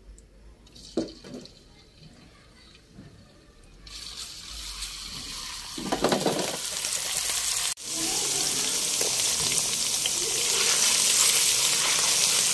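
Ginger-garlic paste frying in hot oil in a karahi: a faint start with a few light spatula knocks, then a steady loud sizzling hiss from about four seconds in, with a short break near the middle.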